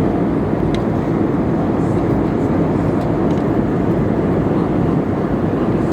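Steady cabin noise of an Airbus A320neo airliner in flight: an even, low rush of engine and airflow noise heard from inside the cabin.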